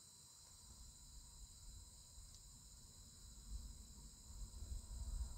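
Faint, steady chorus of crickets, a high unbroken trill, with a low wind rumble on the microphone that grows over the last couple of seconds.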